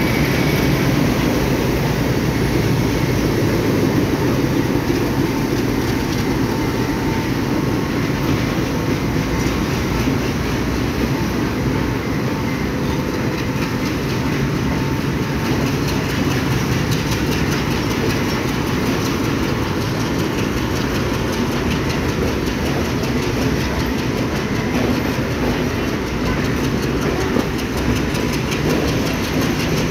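Sri Lanka Railways M8 class diesel locomotive and its Chinese-built coaches running past, the coach wheels clicking steadily over the rail joints, more plainly in the second half.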